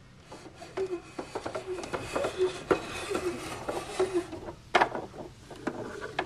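Handling sounds of plastic Monster High dolls being moved about a toy dollhouse close to the camera: rustling, light taps and clatter, with one sharper knock about three quarters through.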